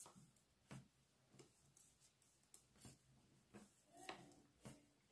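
Faint, irregular clicking of knitting needles, roughly one click every half second, as stitches are worked in a row of garter stitch.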